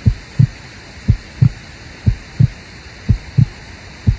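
Heartbeat sound effect: pairs of low thumps, a lub-dub about once a second.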